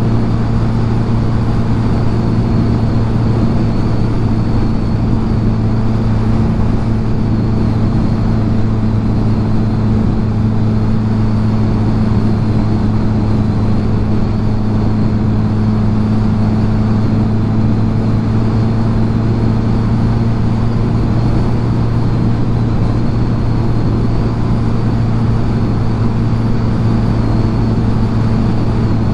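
Kawasaki Z900 inline-four motorcycle engine running at a steady, unchanging pitch, with a constant rush of wind and road noise and no revving.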